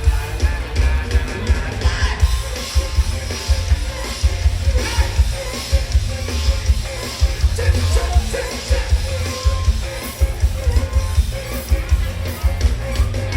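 Live band music played loud through a PA, driven by a dense kick drum and bass line, with amplified instruments and some vocals above.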